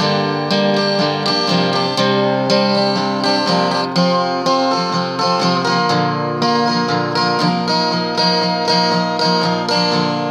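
Acoustic guitar strummed in a steady rhythm, an instrumental break between sung lines of a folk song.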